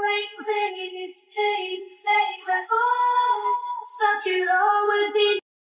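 A high female voice singing a melody unaccompanied, with held notes, cutting off suddenly near the end.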